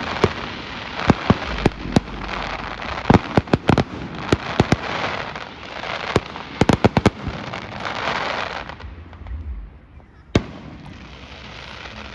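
Fireworks display going off: many sharp bangs in quick clusters over a steady crackle. It thins out after about nine seconds, with one last bang near the end.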